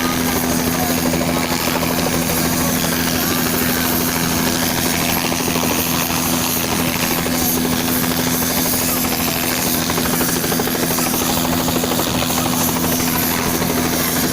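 Helicopter running steadily, a constant sound with a steady low hum that does not change.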